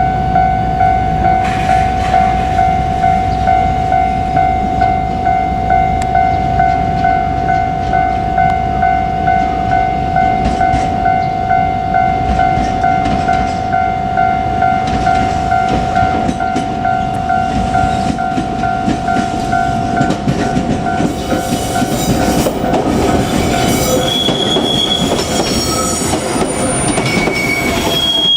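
A level-crossing warning bell rings in a steady pulse, a little over one strike a second, and fades after about twenty seconds. A JR Kyushu 817-series electric train then runs past with a rising rumble. Near the end its wheels squeal with high, shifting tones.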